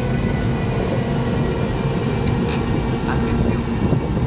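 E402B electric locomotive running slowly past at close range: a steady loud drone of its running equipment with several steady whining tones on top, and a few faint clicks about halfway through.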